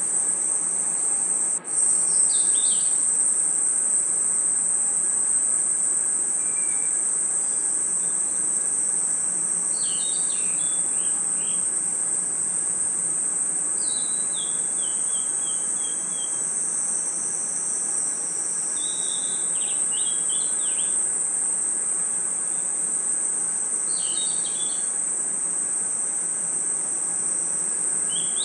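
Night insect chorus of crickets: a steady, high-pitched trill, with short groups of lower chirps every few seconds, some stepping downward. A brief dropout comes about a second and a half in.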